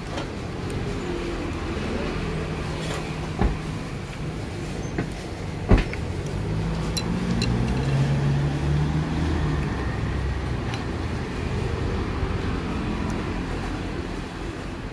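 Road traffic: a vehicle engine running close by, swelling in the middle and easing off, over a steady street rumble. Two sharp clicks cut through, about three and a half and six seconds in.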